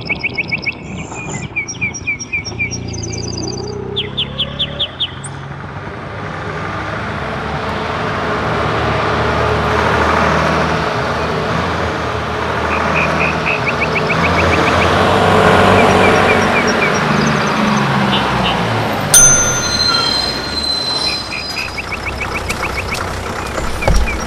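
A diesel bus growing louder as it approaches and pulls up, its engine noise swelling and easing, with a sharp click and a brief high squeal about three quarters of the way through. Birds chirp in quick trills over a low small-engine hum at the start, and chirp again near the end.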